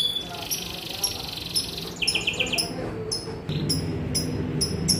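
Young canary singing: fast trills and runs of rapid, repeated high chirps. A steady low hum comes in about three and a half seconds in.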